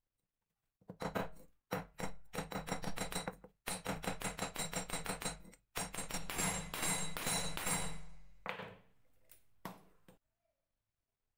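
Hammer striking a small steel wire ring on a steel anvil to flatten its overlapping ends for riveting: a quick run of ringing metallic blows, several a second, then two last strikes near the end.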